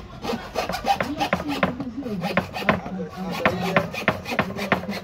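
Coping saw cutting thin plywood by hand in quick, even back-and-forth strokes, about three to four a second.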